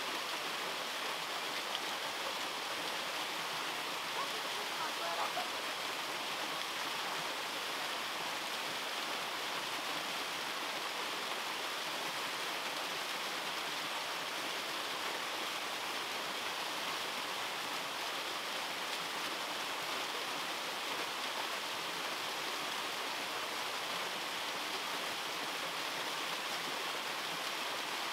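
Small waterfall cascading over rock: a steady, even rush of falling and splashing water.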